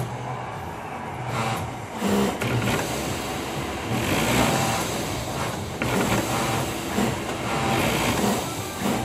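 Pegasus industrial sewing machine running as fabric is fed through it.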